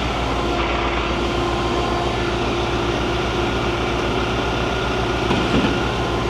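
Heavy diesel engine of concrete machinery running steadily, a fast even low throb under a constant hum.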